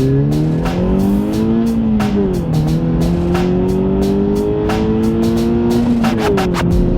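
Scion FR-S's flat-four engine pulling under way: the revs climb, then drop twice, about two and six seconds in, as the gears are changed. Many short, sharp clicks sound over it.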